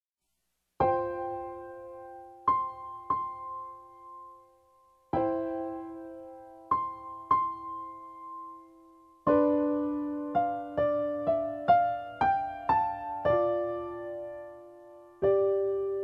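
Bell-like tuned notes, each struck and left to ring and fade. A few slow, widely spaced strikes come first, then a quick run of rising notes about two-thirds of the way through, and a final ringing note near the end.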